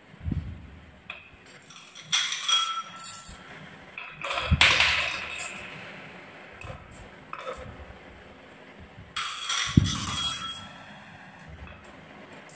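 Marbles clacking and rattling along a HABA wooden marble run, in several bursts of sharp clicks and knocks with a few heavier thuds.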